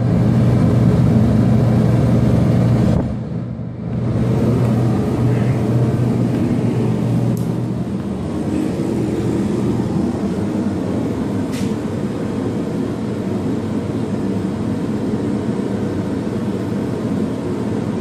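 ProTemp Sun-Stream PT-70-SS 70,000 BTU radiant kerosene heater running: a steady whir from its fan and burner, with a low hum that fades out partway through. The sound drops briefly about three seconds in.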